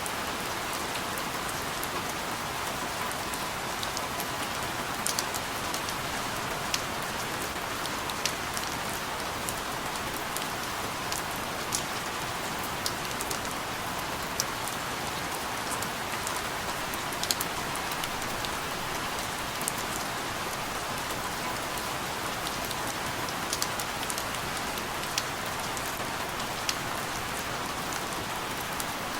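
Steady rain falling on a surface, an even hiss with individual drops ticking sharply here and there.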